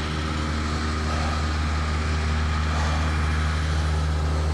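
Telehandler's diesel engine running steadily with a deep, even hum.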